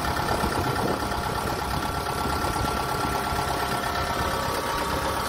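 Kubota DC-68G combine harvester running steadily: the drone of its four-cylinder turbocharged diesel engine, with a steady high whine on top.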